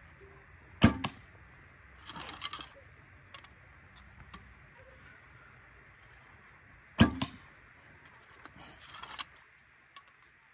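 Two shots from a Sav Archery JigSaw Phi traditional bow, about six seconds apart: each a sharp snap of the string on release. Each shot is followed about a second and a half later by a short rattling clatter.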